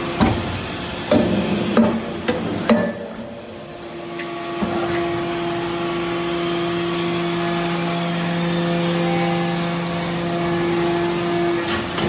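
Hydraulic aluminium-chip briquetting press at work. It gives several sharp metallic clanks in the first few seconds, then a steady hydraulic hum from about four and a half seconds in while the ram compresses the chips. Another clank comes near the end.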